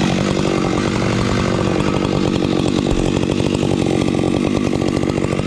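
Husqvarna 592XP two-stroke chainsaw running steadily at high revs, its pitch holding level.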